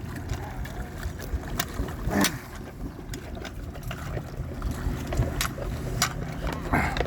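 Wind rumbling on the microphone, with scattered light knocks and clicks as things on the boat are handled. The boat's engine is not running.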